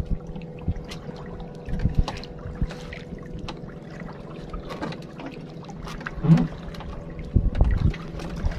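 Small wooden fishing boat's engine idling with a steady hum, while water splashes against the hull. A few short knocks come as a longline is hauled in by hand, the loudest a little after six seconds in and near the end.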